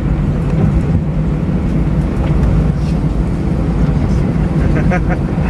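Steady loud low rumble inside an airliner cabin as it rolls along the runway after landing: engine and wheel noise.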